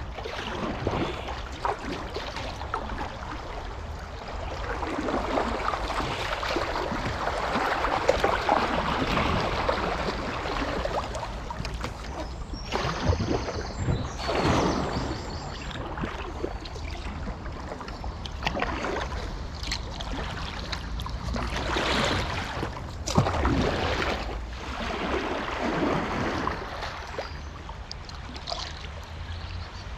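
Kayak moving down a flowing river: water rushing and splashing around the hull, with paddle strokes swelling every few seconds over a steady low wind rumble on the microphone.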